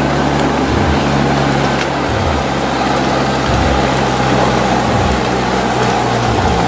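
Heavy diesel engine of a forestry machine running steadily under load. Its pitch dips briefly and recovers about every second and a half.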